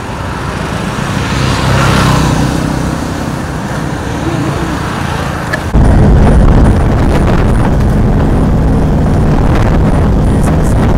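Road traffic noise that swells and fades as a vehicle passes. About halfway through it cuts suddenly to a louder, steady low rumble of a car driving, heard from inside its cabin.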